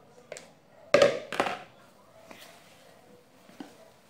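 A few sharp knocks of kitchenware against a mixing bowl about a second in, then faint scraping and ticks of a wire whisk folding beaten egg whites into cake batter.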